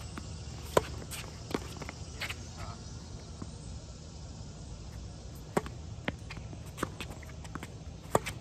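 Tennis rally on a hard court: sharp pops of racket strings striking the ball, the loudest a forehand about a second in and another near the end, with quieter ball bounces and the far player's hits in between.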